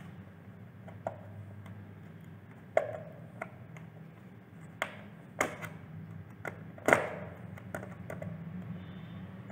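Screwdriver tightening the terminal screws of a light switch: irregular sharp clicks and scrapes of the blade against the screw heads and switch body.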